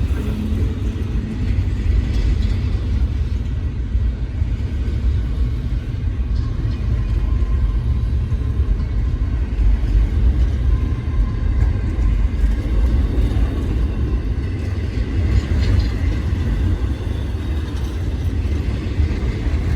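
Long freight train rolling past close by: a steady, loud low rumble of wheels and cars on the rails.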